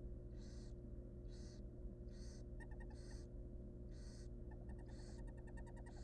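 Barn owl nestlings begging in the nest box: a run of short hissing snore calls, about one a second, with fast rattling clicks between them in the second half, over a steady low hum.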